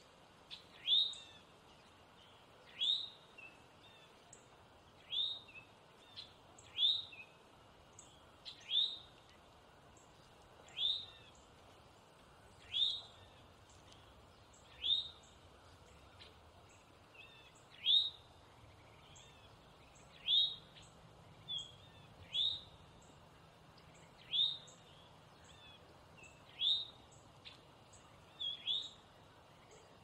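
Male eastern towhee giving its alarm call: a short upslurred note repeated about every two seconds, some fifteen times.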